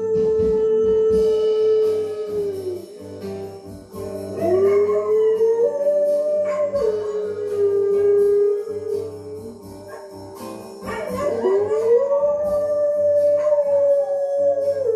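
A dog howling along with music: long drawn-out howls, one trailing off and dropping in pitch about two and a half seconds in, another rising about four seconds in and then falling, and a third rising about eleven seconds in, held high and falling away near the end.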